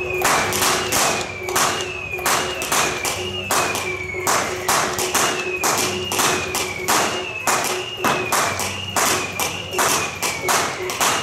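Temple-procession percussion band playing a fast, even beat of strikes. A ringing metallic note that falls in pitch is struck about once a second, over a steady held tone.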